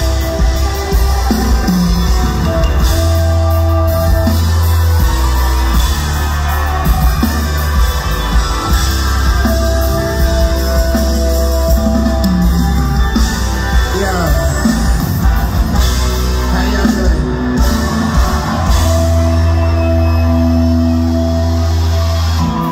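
A reggae band playing live, loud: electric guitars, bass, drums and keyboards, with deep bass notes held for several seconds at a time.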